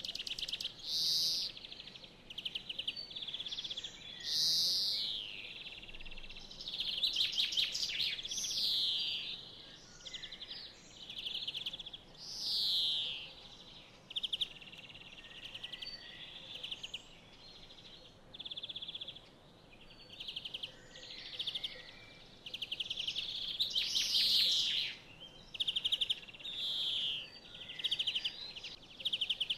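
Songbirds singing: short high phrases follow one another with little pause, mixing falling whistled notes and quick rattling trills.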